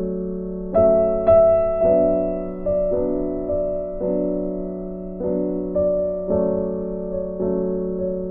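Background music: soft, slow piano chords, each struck and left to fade before the next.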